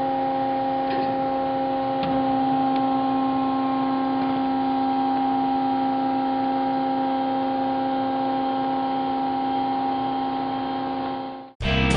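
Hyd-Mech V-18 vertical bandsaw running, a steady machine hum made of several held tones, with a few faint ticks in the first seconds. The sound cuts off abruptly just before the end.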